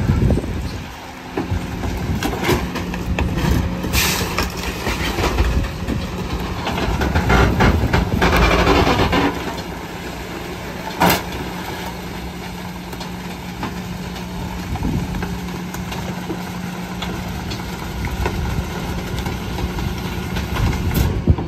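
Rear-loading garbage truck running with a steady low hum, while bulky items are thrown into its hopper with clattering knocks and a sharp bang about eleven seconds in.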